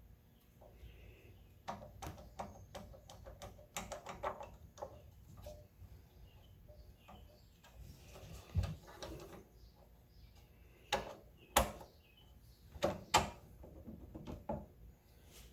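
Hand tools clinking and knocking against metal as a carburetor is worked loose on a small pump engine: a string of scattered clicks, with a few sharper knocks in the second half.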